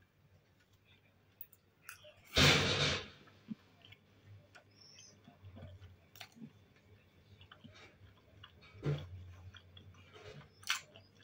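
Close-up mouth sounds of a person chewing a bite of dark bread and pelmeni dumplings, with faint wet clicks. About two and a half seconds in comes a short, loud burst of noise, and a smaller one near nine seconds.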